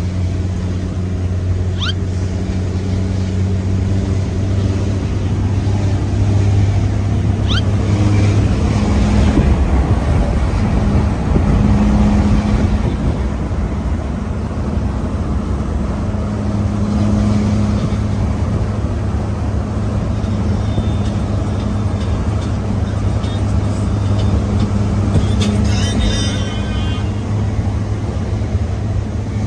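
Truck's diesel engine and road noise heard from inside the cab while driving at night on a highway: a steady low drone whose note swells a little now and then. A brief high-pitched sound comes in near the end.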